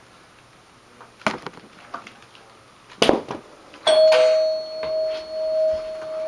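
Two sharp clunks, then a doorbell ringing: a steady electronic tone that starts about four seconds in and swells and fades as it holds.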